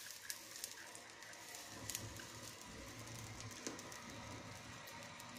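Hot oil faintly sizzling and crackling in a frying pan with a pinch of asafoetida just added, with a few scattered light ticks.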